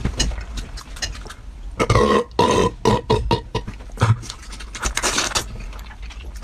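Close-miked eating: wet chewing and lip-smacking clicks throughout, with a throaty vocal sound, burp-like, through the mouthful from about two seconds in.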